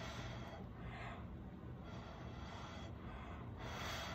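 Breath blown in short puffs through a drinking straw onto wet acrylic paint, about one puff a second, pushing the pour paint around to shape cells.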